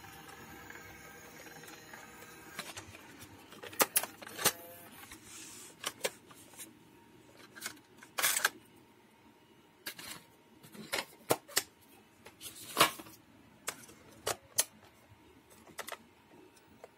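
Handling of an RCA VHS-C camcorder's plastic cassette compartment: a string of separate sharp clicks and knocks as the cassette door is opened and pushed shut.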